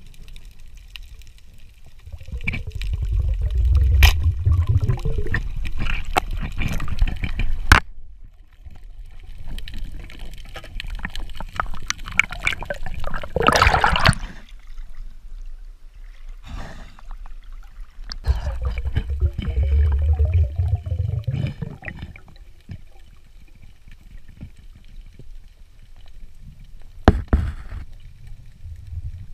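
Underwater bubbling and gurgling from a diver's exhaled breath, in two long rumbling bursts with a loud hiss between them. A few sharp clicks come through as well.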